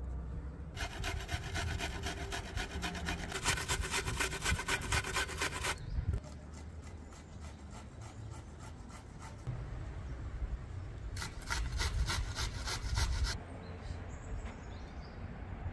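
A cleaver chopping minced meat with chopped peppers and herbs on a wooden board, striking in fast, even strokes. There is a long run from about a second in to about six seconds, then a shorter run near the end.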